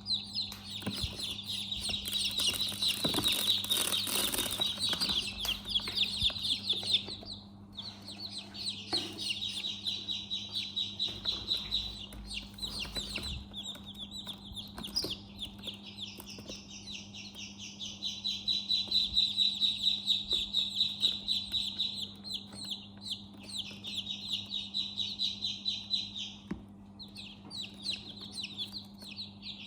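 Many newly hatched chicks peeping at once, dense overlapping high-pitched cheeps with short lulls about seven seconds in and again near the end. A steady low hum runs underneath.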